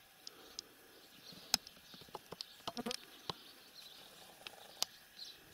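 Quiet outdoor ambience: faint insect buzzing, with a scattered handful of short sharp clicks and ticks.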